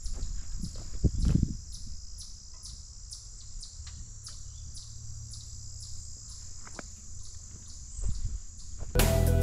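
Insects chirping in a steady high drone with quick even pulses, over a low steady rumble. A thud about a second in. Music begins near the end.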